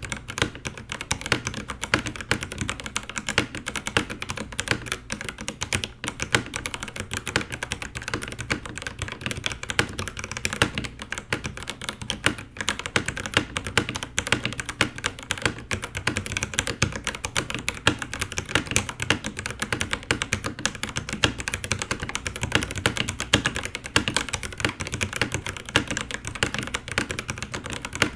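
Fast, continuous typing on an FL-Esports FL980 mechanical keyboard with factory-lubed Kailh Box Red linear switches, a steel plate and PBT keycaps: a dense stream of keystroke clicks and clacks, recorded through a Blue Yeti microphone in omnidirectional mode.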